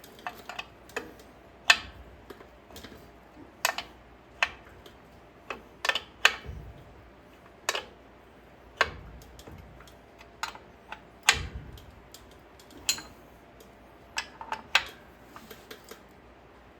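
Irregular sharp metallic clicks and taps, roughly one a second, a few with a dull knock, from a wrench working the brake-shoe adjusters on an axle's brake assembly as the shoes are adjusted in all the way.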